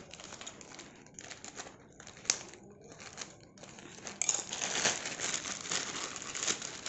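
Plastic courier mailer bag crinkling as it is handled, with a single sharp click about two seconds in. From about four seconds in the crinkling grows louder and denser as the bag is pulled open.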